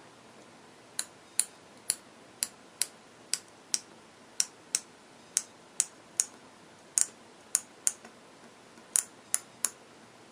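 A series of sharp, light clicks, about twenty of them at an uneven pace of roughly two a second, with no engine running.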